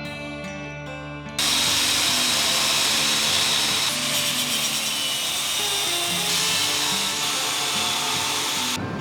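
A power tool grinding or cutting metal, a loud, steady hiss that starts suddenly about a second and a half in and stops just before the end, over background music.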